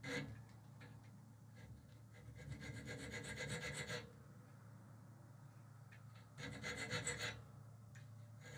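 Faint scraping of a triangular hand file on a thin steel bar, cutting a notch into the tip to split it into two forks. It comes in short spells of quick fine scraping: a moment at the start, a longer spell about two seconds in that lasts nearly two seconds, and a shorter one a little before the end.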